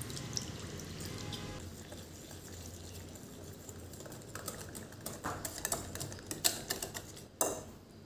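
Water poured from a bottle into a bowl of semolina and yogurt, then a wire whisk beating the thick batter. From about four seconds in, the whisk's wires click rapidly against the bowl, with one louder knock near the end.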